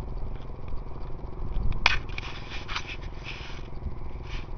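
Bicycle rolling across a bridge deck: a steady low rumble, a sharp click about two seconds in, then stretches of hiss.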